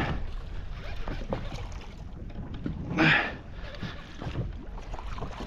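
Fishing reel being cranked while fighting a fish, with scattered faint ticks over a steady low wind rumble on the microphone. A short grunt or exhalation from the angler comes at the start and again about three seconds in.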